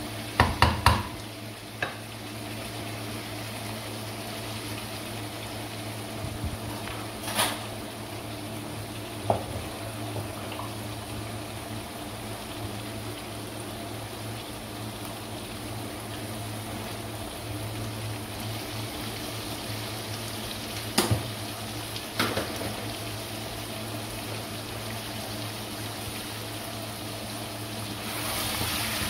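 Potatoes and chicken koftas frying in masala in a non-stick kadai, a steady sizzle, with a quick clatter of a spatula against the pan about half a second in and a few single knocks later. The sizzle grows louder just before the end.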